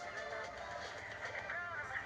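A pop song with singing playing in the background, over a steady hiss of rain.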